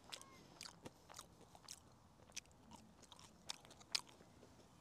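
A person chewing crisp French fries close to the microphone: a string of faint, short crunches and mouth clicks at an uneven pace.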